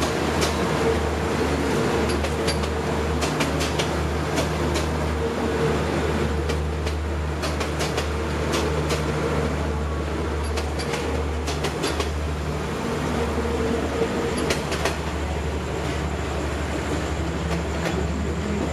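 Passenger coaches of a State Railway of Thailand express train rolling past at speed: a steady rumble and hum with irregular sharp clacks from the wheels running over the rail joints.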